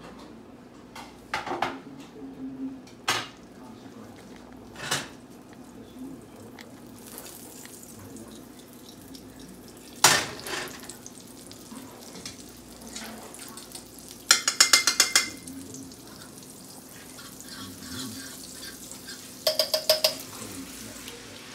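Kitchen clatter of a frying pan and utensils: a few separate knocks and clinks, then two short runs of quick metallic tapping against a stainless steel mixing bowl of eggs, one about two-thirds of the way in and one near the end.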